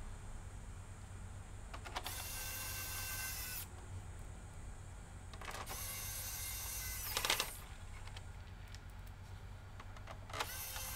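A small high-pitched electric motor whirs in three separate bursts of about one and a half to two seconds each, starting about two, five and a half and ten seconds in.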